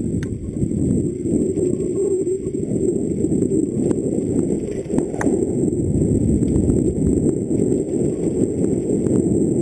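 Mountain bike rattling down a dirt forest trail, heard from a helmet-mounted camera: a dense, steady low rumble of tyres and frame over the ground, with sharp knocks about four and five seconds in.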